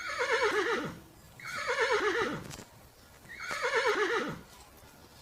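Horse neighing three times, about two seconds apart, each whinny a quavering call that falls in pitch.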